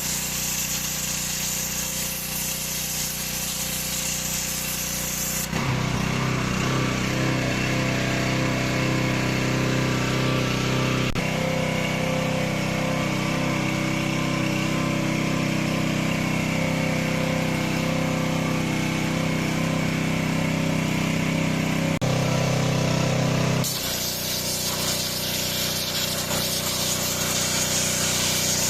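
INGCO GHPW2003 gasoline pressure washer with its 6 HP engine running steadily, with the high hiss of its water jet spraying. The spray hiss stops about five seconds in, leaving the engine and pump sound, and starts again near the end.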